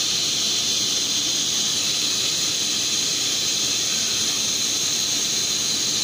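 Hot-air plastic welding gun blowing a steady hiss through its speed-welding nozzle while a polypropylene welding rod is fed into a seam.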